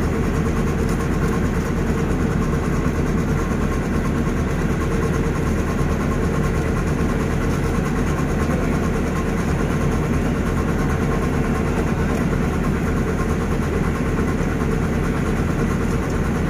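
Sumitomo SH210 excavator's diesel engine idling steadily, a constant low hum.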